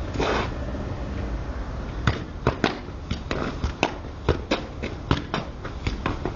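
Football touches: sharp taps and knocks of a ball being kicked and bouncing off paving and a brick wall, starting about two seconds in and coming irregularly several times a second, with footsteps on the paving.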